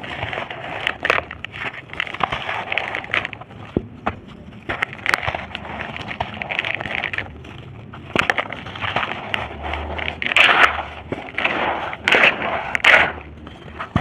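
Dry, crumbly red dirt shapes being crushed and crumbled, a continuous crunching and crackling full of sharp little snaps, with louder crunches in the second half.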